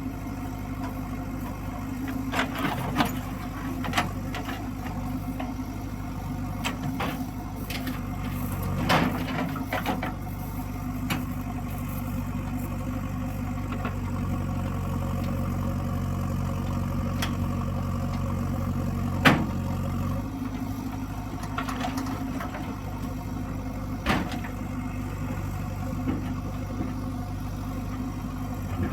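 Heavy diesel engine of earthmoving machinery running steadily, with sharp metallic clanks and knocks at intervals. The engine works harder for several seconds in the middle and drops back to idle just after a loud clank.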